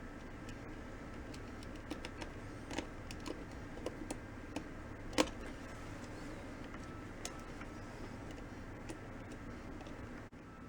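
Scattered light clicks and taps of small parts being handled while a camera zoom lens is taken apart, with one sharper click about five seconds in. A steady low hum runs underneath.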